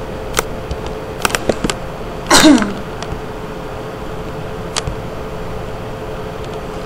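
A steady hum under a constant hiss, broken by a handful of sharp computer-mouse clicks. About two and a half seconds in comes one short, loud burst of the narrator's voice, a sneeze- or cough-like sound.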